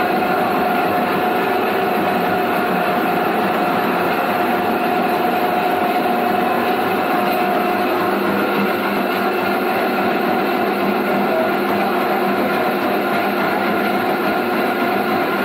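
Motor-driven coffee cherry pulping machine running steadily, a constant hum with a steady whine, as red coffee cherries are milled.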